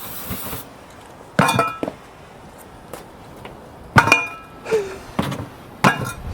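Three sharp metallic clanks, each ringing briefly, about one and a half, four and six seconds in, after a short hiss at the very start.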